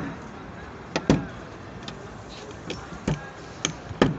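Mallet tapping a knockdown punch held against a car door's sheet metal, a series of sharp taps one or two a second, some in close pairs: knocking down high spots during paintless dent repair.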